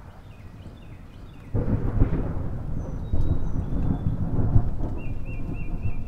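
Russell Hobbs electric mini chopper switched on about one and a half seconds in, its blades chopping green herbs in the plastic bowl with a loud, low rumble; it cuts out briefly around three seconds in and then runs again, pulsed by pressing down on the lid.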